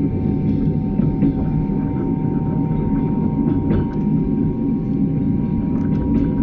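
Passenger train rolling on the rails: a steady low rumble of wheels and cars with a faint steady hum above it and a few scattered light clicks.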